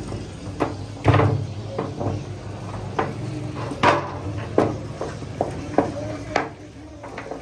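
Irregular knocks and clatters of kitchen utensils and cookware, about a dozen sharp strikes with short ringing tails, over a steady low hum.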